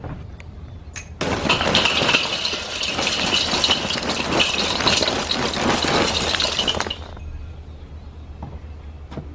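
Lump charcoal poured from a bag into a kettle grill's metal bowl: a dense rattling clatter of lumps tumbling onto each other and the bowl. It starts about a second in, runs for about six seconds and stops.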